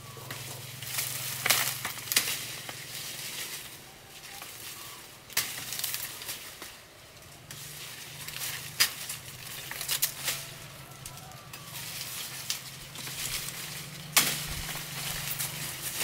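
Machete or bush knife cutting through tall grass stalks, with rustling leaves and a few sharp chops and snaps at irregular intervals over a faint low steady hum.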